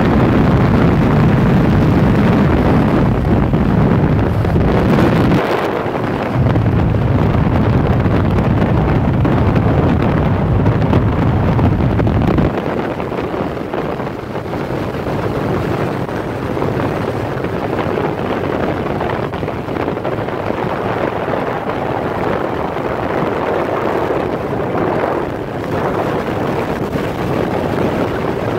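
Wind buffeting a phone's microphone on a moving motorcycle, with the motorcycle's engine and road noise underneath. The heavy low rumble dips briefly about five seconds in and eases off about twelve seconds in.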